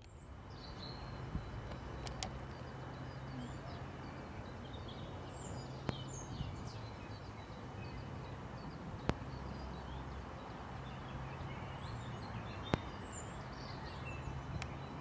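Outdoor ambience of small songbirds chirping and whistling over a steady low background rumble, with a few sharp isolated clicks.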